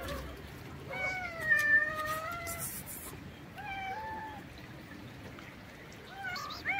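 Cat meowing: one long, drawn-out meow about a second in, a shorter meow around four seconds, and another beginning near the end.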